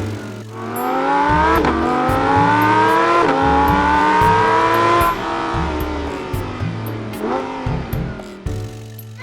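An engine revving, its pitch climbing in three successive runs, then falling away and rising briefly again near the end, over background music with a steady bass beat.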